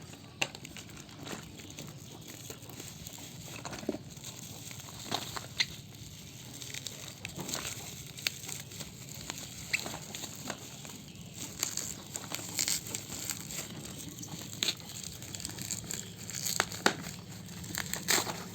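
Packaging of a new fishing lure being handled and opened: irregular crinkling and rustling with scattered small clicks.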